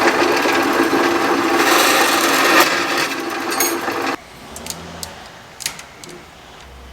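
Metal brake line being worked with a hand tool, a loud steady rasping for about four seconds, as when the tube end is cut or dressed before flaring. It stops suddenly, followed by a few light clicks.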